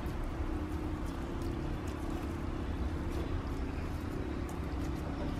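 Hands kneading and squeezing a crusted iceberg slime, giving faint scattered crackles over a steady low background hum.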